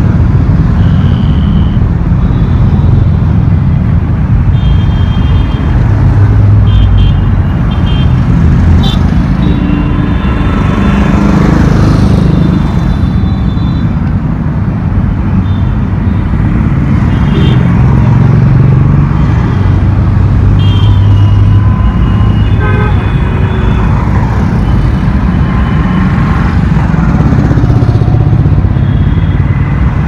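Heavy road traffic passing close by: cars and motorcycles driving past with a continuous rumble of engines and tyres. Frequent short horn toots from different vehicles sound throughout.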